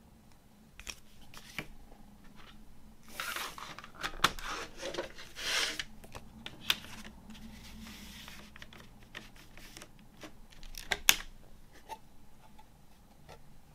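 Paper CD booklet rustling and plastic jewel case clicking as they are handled, with a sharp click near the end as the disc is lifted from the case.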